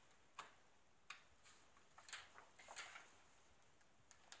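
A few faint clicks and soft paper rustling as a pen tip pries the staples out of the spine of a glossy paper catalogue.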